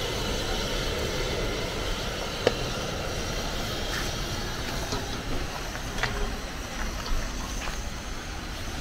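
Steady rain falling, a continuous hiss with a few sharp ticks scattered through it.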